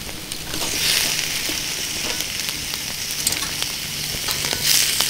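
Meat sizzling on a grill grate over a wood fire, a steady hiss that swells about a second in and again near the end, with scattered sharp crackles from the burning wood.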